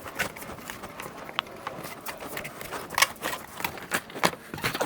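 Old headliner fabric being peeled off the foam-backed headliner board, giving irregular crackling and ripping snaps.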